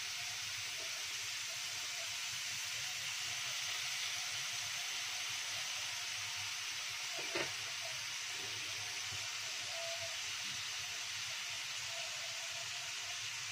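Carrots, mushrooms and baby corn sizzling steadily in a hot wok as they are stir-fried, with one short knock about halfway through.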